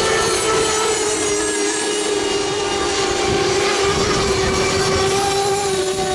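Several radio-controlled model racing boats with 7.5 cc two-stroke outboard engines running flat out together, a steady high-pitched engine whine with a few engine tones overlapping.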